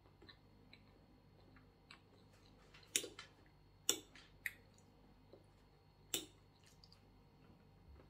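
Eating sounds: a fork and knife working on a plate of food, with four louder sharp clicks and small ticks spread through.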